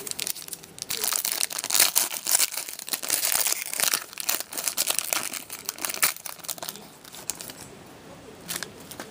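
Foil wrapper of an Upper Deck SPx hockey card pack being torn open and pulled apart by hand: a dense crinkling crackle that dies down about seven seconds in, followed by a couple of light clicks.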